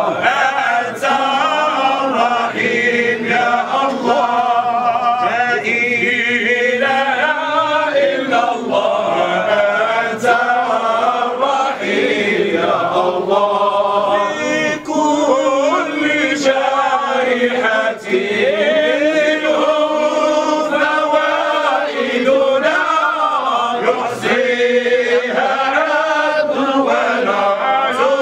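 A group of men chanting Sufi devotional verses together in unison, a sung dhikr with the voices rising and falling in one melody.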